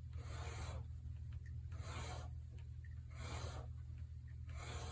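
Four slow rasping strokes, about a second and a half apart, like filing or sanding, over a low steady hum.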